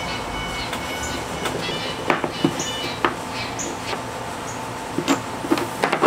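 A few light knocks and clicks as a small 12-volt diaphragm water pump is handled and fastened inside a plastic hard case, over a steady background hum.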